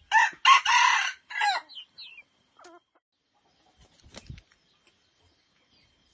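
Red junglefowl rooster crowing once, a short crow of about a second and a half in four loud pulses, with a few fainter trailing notes after it. A soft thump comes about four seconds in.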